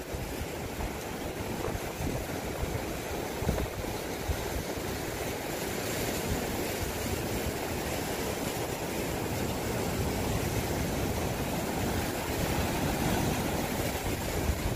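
Sea surf washing in and breaking over shoreline rocks, a steady rushing noise that grows a little louder toward the end.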